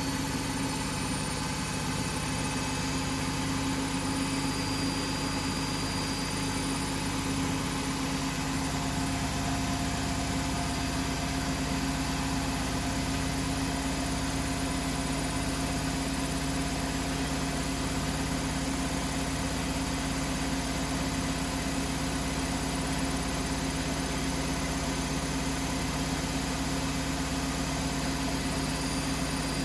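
Beko WML 51211 EL+ washing machine running: a steady motor hum with a few constant tones over a noisy whirr, unchanging in level. The low rumble thins out about eight seconds in.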